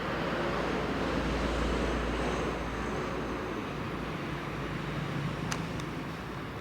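Steady rumble of road traffic, swelling about a second in and easing off. A couple of small clicks come near the end.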